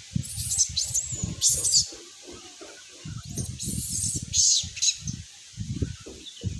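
Small birds chirping in short high-pitched clusters, about half a second in, around one and a half seconds, and again from about three and a half to five seconds, over an irregular low rumble.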